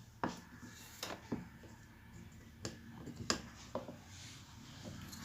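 Scattered light clicks and taps, about six at uneven intervals, from small parts of a horn driver unit being handled during a voice coil replacement.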